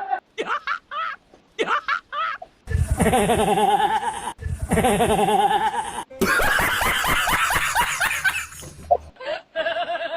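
A string of meme laughing sound effects played one after another. First come short snickers, then the same loud laugh clip twice in a row, then a stretch of overlapping laughter from several voices.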